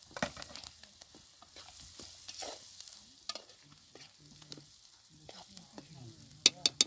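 Metal spoon stirring a filling frying in oil in a metal pan over a wood fire: a light sizzle with scraping and small clinks of the spoon against the pan. A few sharp clicks near the end.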